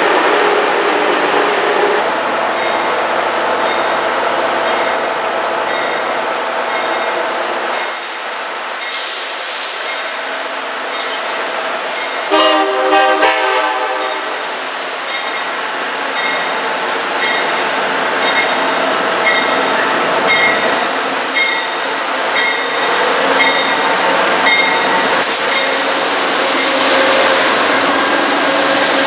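Amtrak train running by on the rails, sounding a short horn blast about halfway through, the loudest moment. Afterwards its wheels click in a steady rhythm over the rail joints, a little more than once a second.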